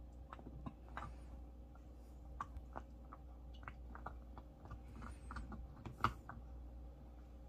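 A small dog chewing food on a bed: quiet, irregular clicking bites and crunches, with one louder snap about six seconds in.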